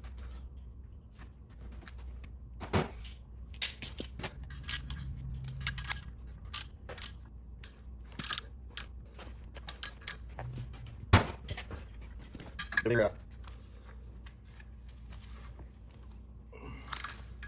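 Irregular metallic clinks and clanks as a steel three-jaw gear puller is handled and fitted onto a trencher's auger mount, its jaws and tools knocking against the metal, with one sharper knock about eleven seconds in.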